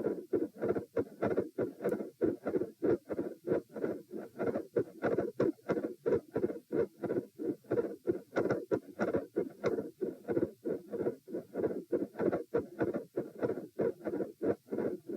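Heartbeat through a stethoscope at the mitral area, running fast at about 90 beats a minute after exercise as an even string of paired lub-dub thumps. The uploader reports a split second heart sound and a mid-systolic murmur in this recording.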